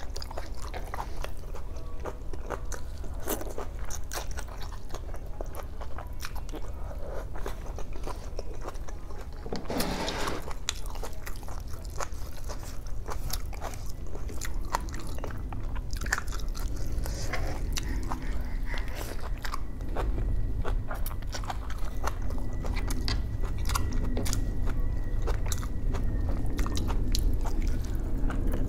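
Close-miked eating by hand: wet chewing, biting and small mouth clicks as boiled pork hock, kangkong (water spinach) and rice are eaten, with one louder burst about ten seconds in. A steady low hum runs underneath.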